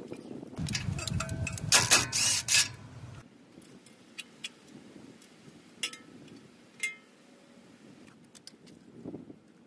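Hand tools, chiefly pliers, clinking and rattling against metal suspension parts as cotter pins are worked out. There is a dense clatter in the first three seconds, then a few separate light clicks.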